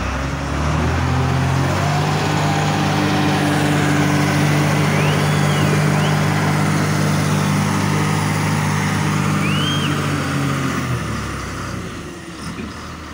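A heavy vehicle's engine runs loud and steady at close range, then dies away about eleven seconds in.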